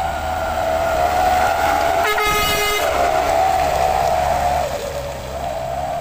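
Heavily loaded diesel truck running on a dirt road, with a low rumble and a steady high whine that sinks slowly in pitch. A horn sounds once, briefly, about two seconds in.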